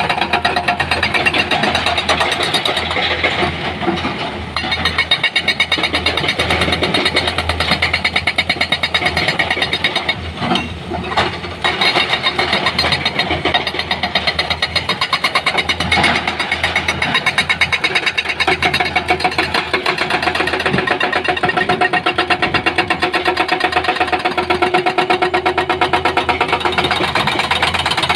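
An engine running steadily with a fast, even pulsing.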